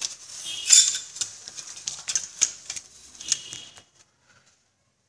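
Sheet-metal case of a computer power supply (SMPS) clinking and rattling as its circuit board is fitted back in by hand: a run of irregular clicks and knocks that stops about four seconds in.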